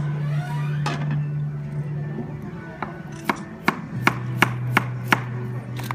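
Kitchen knife chopping on a cutting board: a single chop about a second in, then a run of sharp chops, two or three a second, from about three seconds in.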